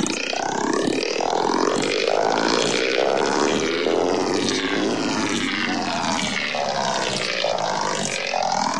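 Heavily processed, warped soundtrack audio with many tones sweeping up and down in pitch at once, at a steady level throughout.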